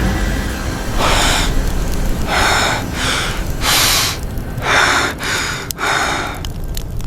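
A person breathing hard in a series of about six loud, gasping breaths, over a low steady rumble.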